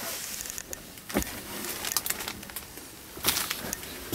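Handling and rustling noises in a truck cab, with a soft thump about a second in and a brief louder crinkle of protective plastic wrapping a little past three seconds.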